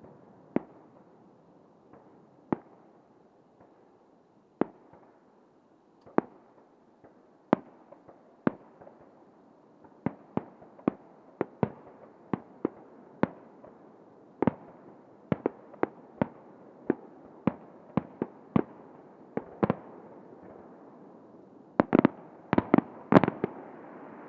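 Aerial fireworks shells bursting: single sharp bangs every second or two at first, coming faster, about two a second, from about ten seconds in, with a cluster of louder bangs near the end.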